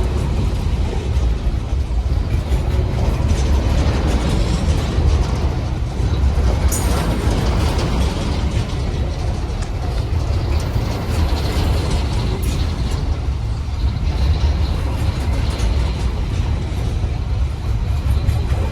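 Freight train hauled by a GE ES43BBi diesel-electric locomotive working hard up a grade: a steady, deep engine rumble under heavy load, over the noise of wheels on the rails. A couple of sharp clicks come through about a third and two thirds of the way in.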